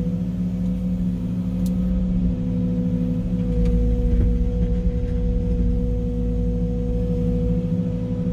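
Small excavator running as it digs, heard from inside the cab: a steady low engine drone with a constant whining tone held over it.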